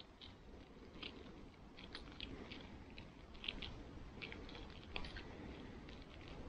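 Faint, irregular ticks and light rustling of a soft-jacketed insulated copper antenna wire being coiled by hand in over-under loops.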